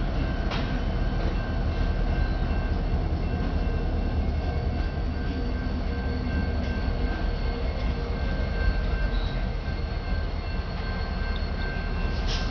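Ferromex diesel locomotives passing at close range: a steady low engine rumble mixed with wheel and rail noise.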